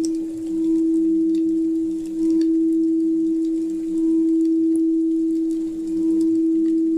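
A steady pure healing-frequency tone for the solar plexus chakra, swelling and dipping about every two seconds, with faint fire crackles scattered over it.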